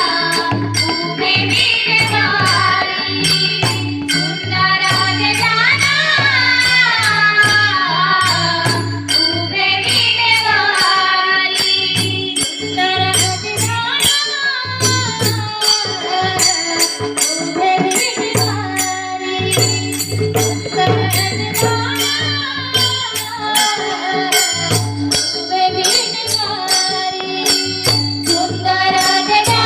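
Marathi devotional bhajan: a lead voice singing over a steady drum beat, with small hand cymbals clicking in time.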